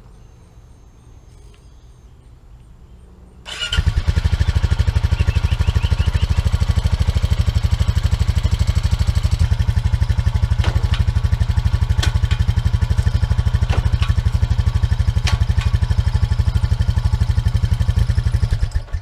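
2007 Honda 420 ATV's single-cylinder four-stroke engine starting about three and a half seconds in, catching at once, then idling steadily with an even pulse on its fresh oil, and shut off just before the end.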